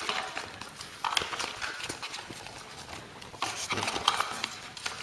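Paper leaflets and the cardboard box insert being handled: rustling of paper with scattered light taps and clicks, louder rustling about a second in and again after three and a half seconds.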